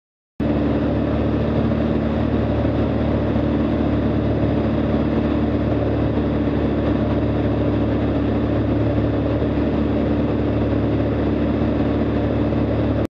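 Light aircraft's piston engine and propeller droning steadily in cruise flight, heard from inside the cockpit, with a steady hum in its tone. It starts abruptly just after the beginning and cuts off abruptly near the end.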